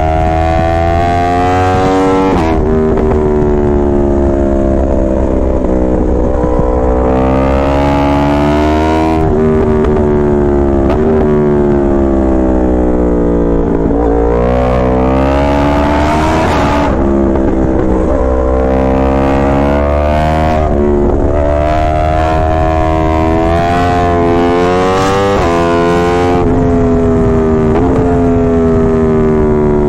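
Yamaha R1 inline-four sportbike engine under way, the pitch climbing and dropping again and again as the rider accelerates, shifts gears and rolls off. Loud throughout, with several sudden pitch breaks at the gear changes.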